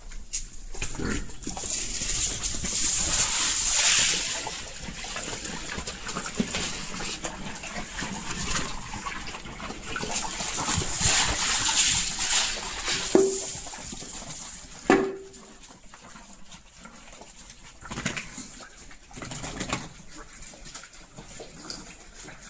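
Pigs eating their morning feed, a wet, noisy munching and slurping with grunts, swelling and easing in waves. Two sharp knocks stand out near the middle.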